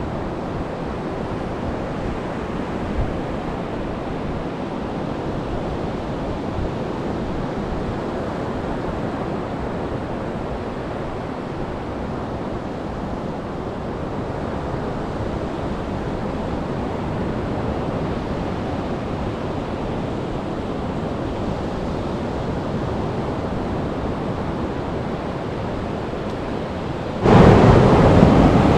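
Surf on a beach in rough seas: a steady rush of breaking waves. About a second and a half before the end it suddenly gets much louder.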